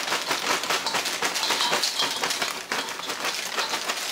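Nacho cheese Doritos tortilla chips pouring out of the bag into a large stainless steel bowl of lettuce and shredded cheese: a dense, steady clatter of many small clicks.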